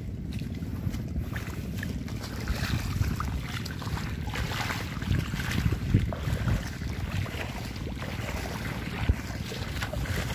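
Wind buffeting the microphone, a steady low rumble that rises and falls unevenly.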